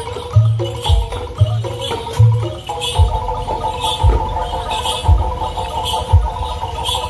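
Bantengan accompaniment music: heavy drum beats about once a second under a pitched melody, which turns into a fast repeating figure about three seconds in.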